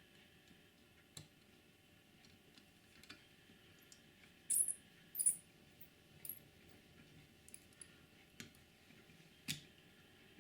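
Small scattered clicks and ticks of tiny screws and a small tool being worked into a model locomotive's chassis, with two louder, high-pitched scratchy clicks in quick succession about halfway through.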